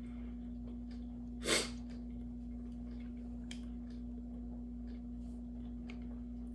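Quiet room with a steady low hum; one short, sharp breath through the nose, like a sniff or snort, about a second and a half in. A few faint light clicks of a fork against a plate.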